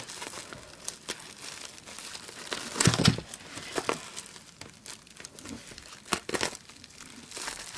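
Bubble wrap crinkling and crackling as it is cut and pulled open with a folding knife, in irregular rustles, loudest about three seconds in and again around six seconds.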